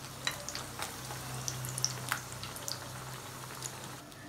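Egg-and-chicken-stuffed Mughlai paratha shallow-frying in hot oil over low heat: a soft steady sizzle with scattered crackles and pops of spitting oil. A low steady hum runs underneath and stops near the end.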